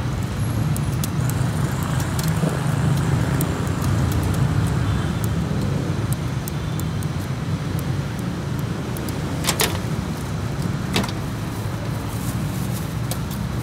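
Steady low rumble of road traffic, with a few sharp metallic clicks of tongs and scissors, the loudest a little past halfway and another about a second later.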